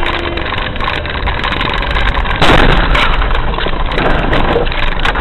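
A car's engine and road noise, heard inside the cabin through a dash cam. About two and a half seconds in, a sudden loud rushing hiss breaks in as a cloud of blown snow sweeps over the car, and it stays loud.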